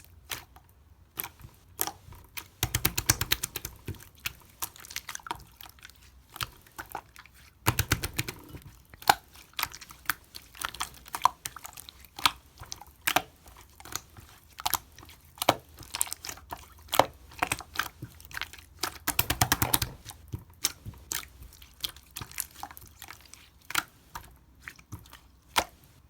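Irregular sharp clicks and taps, with three short runs of rapid clicking.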